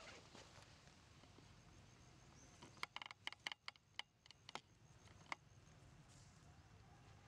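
Near silence broken by a quick run of sharp crackles and clicks about three seconds in, lasting a second and a half, with one more click a little later: dry leaf litter crunching under a long-tailed macaque's steps.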